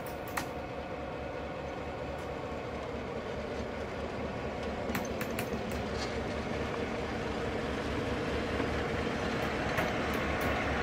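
Two GM class streamlined diesel locomotives, each with a two-stroke EMD 567 V16 engine, rolling slowly past with a steady low throbbing that slowly grows louder as they draw near. A few sharp clicks from the wheels on the track come about half a second in, around five seconds in, and again near the end.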